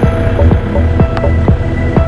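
Background music with a steady beat and a heavy bass pulse.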